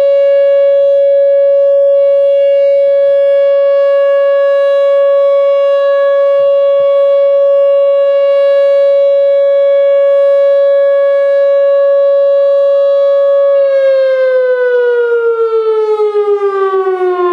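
Whelen OA2 outdoor warning siren sounding a steady, loud tone for the county's monthly siren test. Near the end it starts to wind down, its pitch falling steadily.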